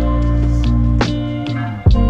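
Background music with a strong bass line, sustained chords and sharp drum hits.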